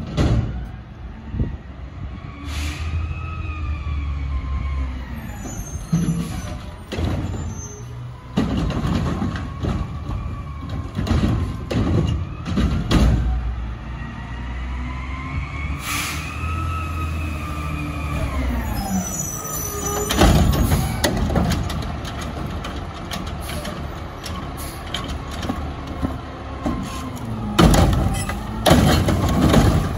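Front-loader garbage truck driving up and pulling to a stop: diesel engine running, its note rising and falling in pitch twice as it revs, with several sudden loud bangs and hisses along the way, the loudest near the end as it stops.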